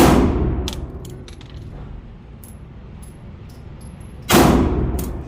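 Two 9mm pistol shots from a Glock 43X, fired slowly about four seconds apart, each a sharp bang with a ringing tail that dies away over about a second. Faint clicks fall between the shots.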